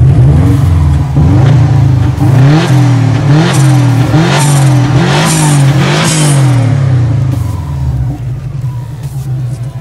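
2003 Subaru Impreza WRX's turbocharged 2.0-litre flat-four engine revved in about six quick throttle blips, each climbing and falling back, then settling to idle near the end. The engine is not running right and is smoking from the exhaust.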